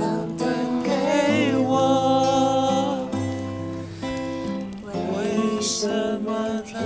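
A woman singing a slow song to acoustic guitar, live around a campfire; she holds some notes with vibrato about a second in.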